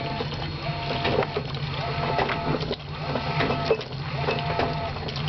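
GE Hydrowave top-load washing machine agitating a load in warm water. Its motor whine rises and falls with each stroke, about once a second, over a steady low hum and the churn of water and clothes.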